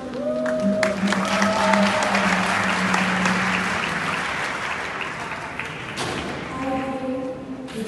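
Audience applause in a large hall over music with sustained notes. The applause swells about a second in and dies away over the last few seconds while the music carries on.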